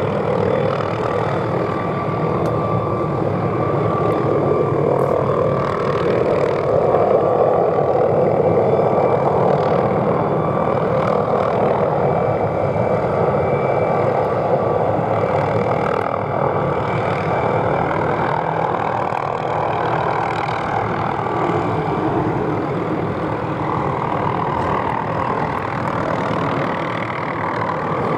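McDonnell Douglas MD520N NOTAR helicopter running in flight while pulling a stringing line overhead: a steady turbine and rotor noise with a faint high whine, growing louder in the middle as it passes closest.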